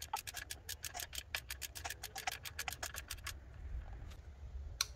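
Small ratchet clicking rapidly, about eight clicks a second for roughly three seconds, then one more click near the end, as the retaining bolt of a new camshaft position sensor is run in on a Mercedes M112 V6.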